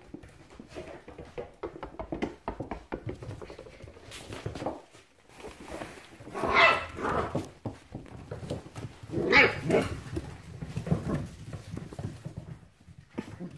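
Border collie puppies scuffling in play, with claws clicking on the floor. Two loud bursts of barking come about six and about nine and a half seconds in.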